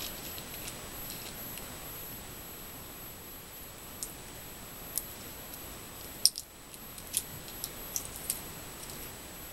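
Scattered small clicks and taps of hands handling a small external microphone and its plastic parts. The loudest is a sharp click a little past the middle, over a steady hiss with a faint high whine.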